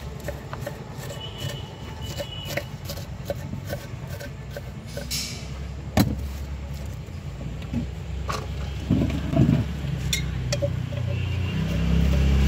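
Low steady rumble of street traffic under scattered clicks and clinks of steel bowls and lids being handled, with one sharp knock about six seconds in. A louder low hum builds near the end.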